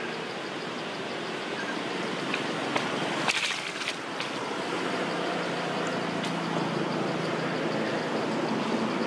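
Steady outdoor background noise. A few sharp clicks or snaps come about two and a half to four seconds in, the loudest a little past three seconds.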